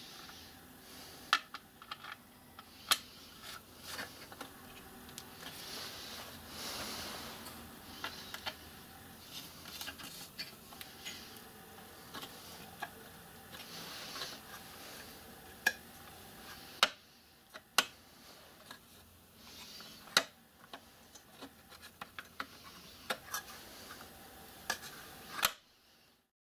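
Hands fitting a clear plastic pulley guard and its small brass fittings onto a miniature lathe: scattered sharp clicks and light metallic taps, with rubbing and scraping in between.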